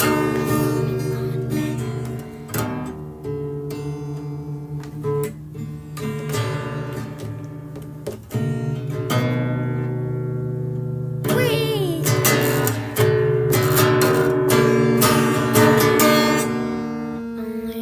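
Outro music: an acoustic guitar strumming chords, fading out near the end.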